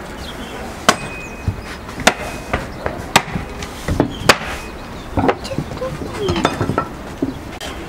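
Long, thin wooden rolling pin knocking and tapping against the table while thin sheets of dough are rolled out and lifted on it, in sharp irregular knocks every second or so.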